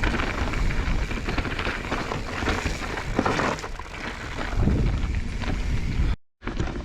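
Mountain bike being ridden over a rough trail: tyre rumble and scattered knocks from the bike, with wind buffeting the microphone. The sound breaks off briefly near the end.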